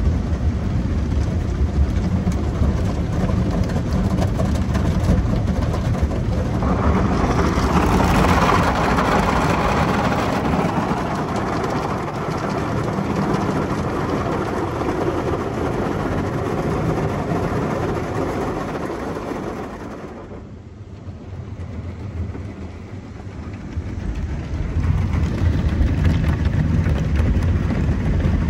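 Soft-touch automatic car wash heard from inside the car: water spray and cloth brushes scrubbing the body and glass over a steady low rumble. The washing grows louder about a quarter of the way in, fades for a few seconds about two thirds through, then comes back strongly near the end.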